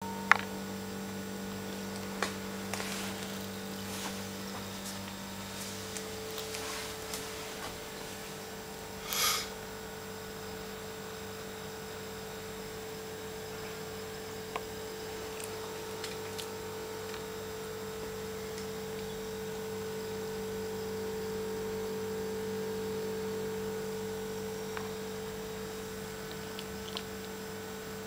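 Steady electrical hum, with a sharp click at the start, a few faint clicks, and a brief noisy sound about nine seconds in.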